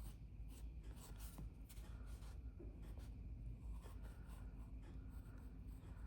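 Faint pencil strokes scratching on drawing paper, quick and irregular, as a branch is sketched in outline.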